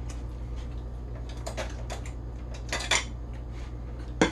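Cutlery clinking against a plate a few times, with the sharpest clink near the end, over a steady low hum.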